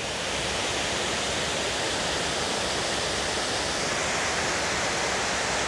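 Water spilling down the stepped masonry face of a step dam at low flow: a steady, even rush of falling water.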